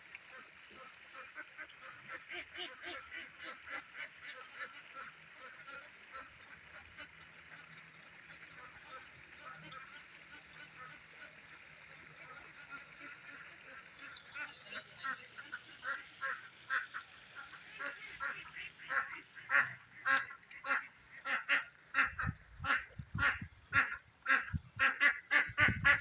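A flock of domestic ducks quacking: a rapid run of short repeated quacks that grows louder over the second half.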